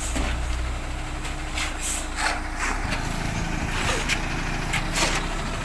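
Concrete mixer truck's diesel engine running steadily, its low hum changing in pitch about three seconds in, with a few scattered clicks over it.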